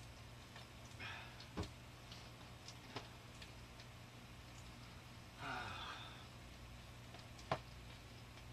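Quiet kitchen room tone: a steady low hum with three faint, sharp clicks and a brief noisy rustle about five and a half seconds in.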